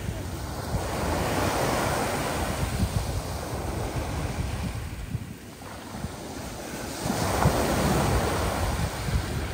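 Rough sea, with waves breaking and washing in two big surges and a lull between them. Wind rumbles on the microphone.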